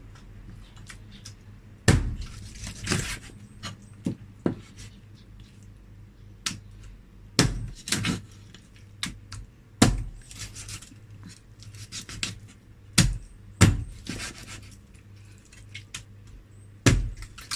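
Kitchen clatter: irregular sharp knocks of utensils and cookware, about a dozen over the stretch, with a low steady hum underneath.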